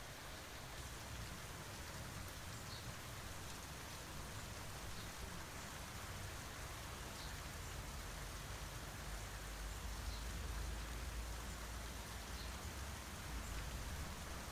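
Steady rain falling, an even hiss, with a low rumble that swells about halfway through. Faint ticks of single drops come every couple of seconds.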